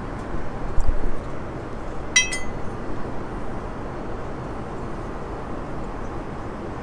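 Steady in-flight cabin noise of a Boeing 787-9 airliner. About a second in there is a dull knock, and about two seconds in a fork gives one short ringing clink against a porcelain plate.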